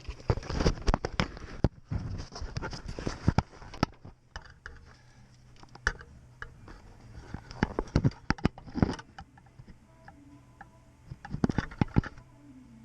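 Handling clatter: a busy run of clicks, rubs and knocks for about four seconds as the head-worn camera is taken off and set down. Then come scattered single metal knocks and clunks, with a cluster near the end, as a transmission is worked into place against the clutch.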